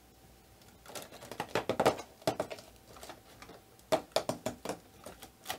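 Cardboard advent-calendar door being pried open and the compartment rummaged: two runs of sharp crackling and tapping, one about a second in and another about four seconds in.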